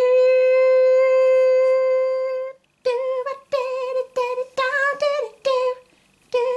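A puppet character's voice humming: one long, steady high note held for about two and a half seconds, then a run of short, wavering sung notes.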